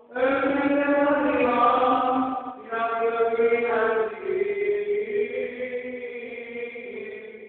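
Greek Orthodox liturgical chant: a voice chanting in long held, slowly bending notes. One loud phrase breaks off about two and a half seconds in, and a second phrase follows and grows quieter from about four seconds in.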